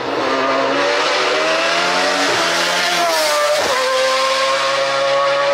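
Naturally aspirated Judd V8 of a Mercedes SLK340 hillclimb racer accelerating hard, its pitch climbing through the revs with two quick upshifts, about two and a half seconds in and again near the four-second mark, then held high.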